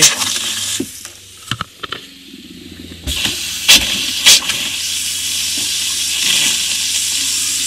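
Boat galley faucet running a steady stream of pinkish water into the sink and down the drain, with the freshwater pump humming underneath as the tank is pumped out for winterizing. The flow gets louder about three seconds in, and there are two brief knocks around then.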